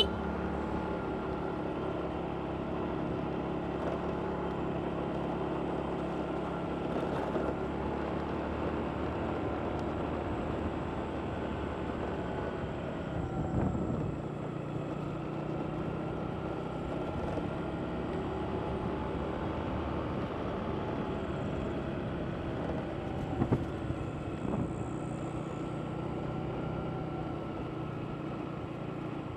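Motorbike engine running steadily while riding through road traffic, with a low hum and road noise. It gets briefly louder twice, about halfway through and again later on.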